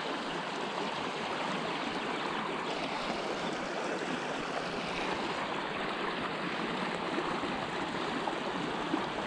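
Creek water flowing steadily: a constant, even rush of running water.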